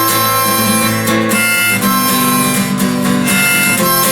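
Instrumental break in a folk-style song: acoustic guitar with harmonica playing held notes.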